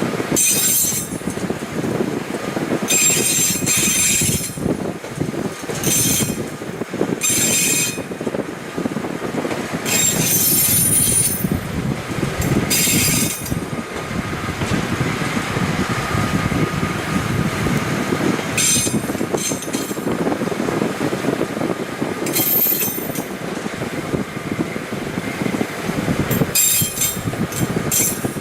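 TMC200-type snowplough motor car running along the track: a steady rumble of engine and wheels on rail, with short high-pitched wheel screeches coming and going every few seconds.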